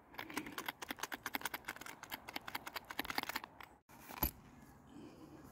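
A safety razor and its zippered hard case being handled: a quick run of light clicks and taps for about three and a half seconds, then after a short gap a single knock.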